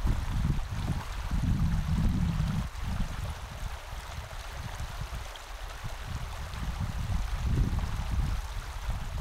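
Steady rushing noise of running water, with gusts of wind buffeting the microphone.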